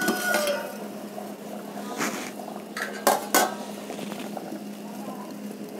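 A steel plate used as a lid is lifted off a steel cooking pot with a metallic clatter. A few sharp clinks of steel utensils follow about two seconds and three seconds in.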